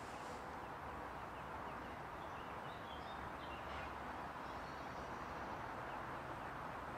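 Steady outdoor background noise with a few faint, brief bird calls.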